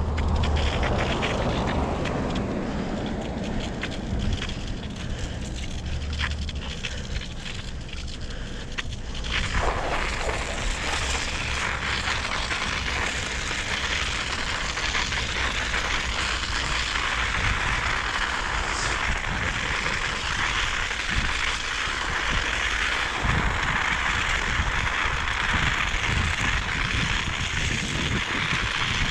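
Wind buffeting the microphone outdoors in winter. About ten seconds in, a steady, dense crackling hiss sets in and carries on.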